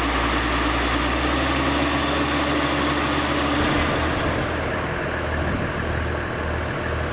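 Diesel engine of a Shantui crawler bulldozer running steadily while it pushes soil. About three and a half seconds in, the low engine hum turns uneven.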